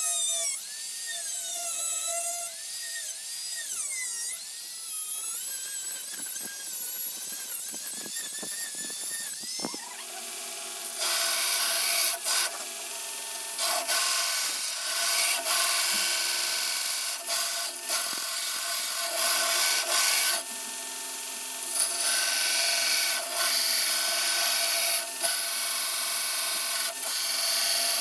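A Dremel rotary tool's cutoff wheel cutting through a W2 steel bar, its high whine wavering up and down as it loads. About ten seconds in it gives way to a belt grinder grinding a steel blade blank, a steady grinding sound broken by short gaps.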